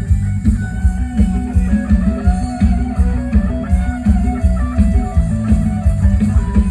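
Loud amplified band music: a heavy bass line and steady drum beat under an electric plucked-string melody.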